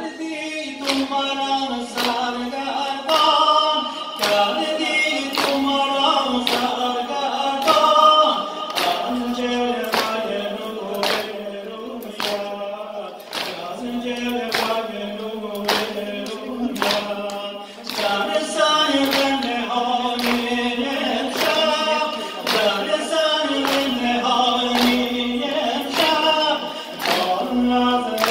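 Men chanting a Muharram mourning lament (noha) unaccompanied, led by a male reciter, over an even beat of hands striking chests in unison, a little over one stroke a second.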